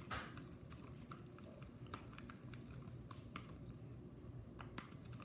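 Sticky homemade glue slime being stirred with a spoon in a plastic tub and pulled up in strands: faint, irregular sticky clicks and squelches.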